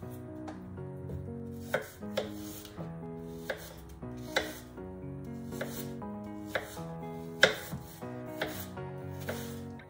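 A kitchen knife cuts apple pieces on a plastic cutting board, with the blade knocking the board about nine times at uneven intervals. The loudest knock comes about three-quarters of the way through. Background music plays underneath.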